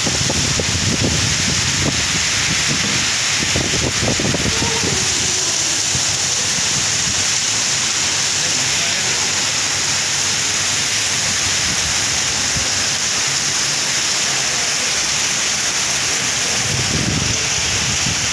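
Heavy monsoon downpour: a steady, dense hiss of rain pouring onto grass, road and trees.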